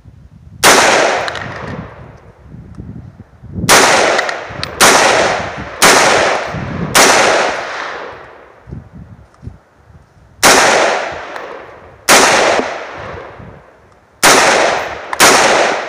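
Nine rifle shots from an AR-15-style semi-automatic rifle, fired one at a time at an uneven pace: a first shot, then four in quick succession about a second apart, then four more with longer pauses. Each crack trails off in a long echo.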